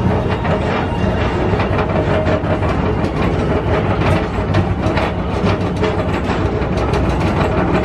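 Tomorrowland Transit Authority PeopleMover car running along its track: a steady rolling noise with a low hum, from the track's linear induction motors, and a continual light clicking and rattling.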